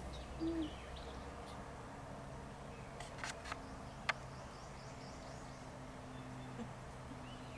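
Quiet outdoor background: a steady low hum with faint bird chirps, a brief low sound about half a second in, and a few sharp clicks around three and four seconds in.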